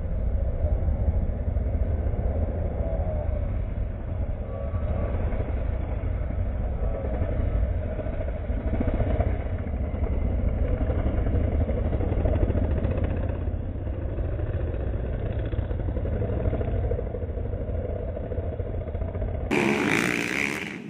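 Several small dirt-bike engines revving and accelerating, their pitch rising and falling, over a heavy low rumble. About 19.5 seconds in the sound changes abruptly to a brighter, louder mix.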